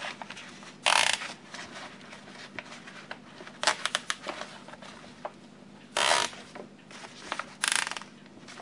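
Nylon zip ties being cinched tight around a PVC dome hub's edge ring. There are four short ratcheting zips, each under half a second and two to three seconds apart, with soft rustling of the plastic sheeting between them.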